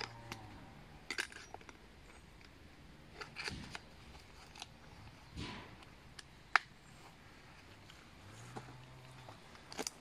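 Hand tools being handled at a wooden chopping block: scattered light clicks and knocks, with one sharper click about six and a half seconds in.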